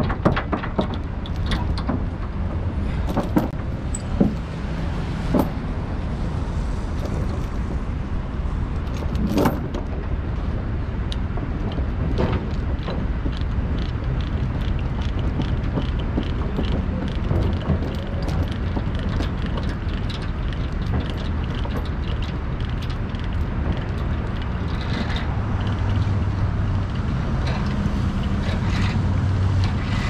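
A vehicle engine running steadily, with metal clinks and knocks from tie-down chains being tightened during roughly the first ten seconds.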